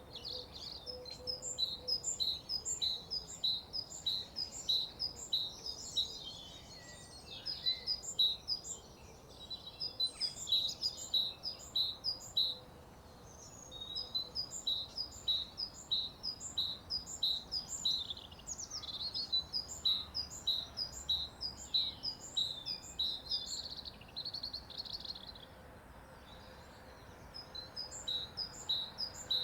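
Morning birdsong: birds singing, with short, high chirps repeated several times a second and other trills and calls mixed in. The singing dips into two short lulls, one about halfway through and one near the end.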